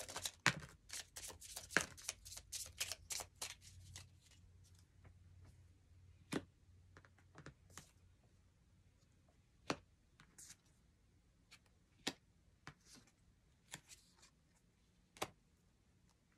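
Oracle cards being shuffled by hand, a quick run of flicking clicks for the first few seconds. Then scattered single clicks and taps as cards are drawn and laid down on the table.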